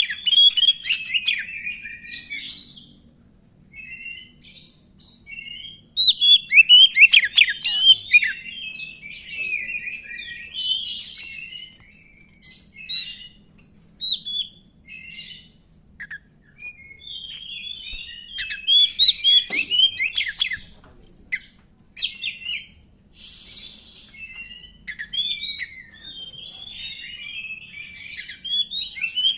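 Oriental magpie-robin (black kacer) singing in full voice: rapid runs of varied whistled notes that swoop up and down, in phrases broken by short pauses, with a few harsh scratchy notes mixed in.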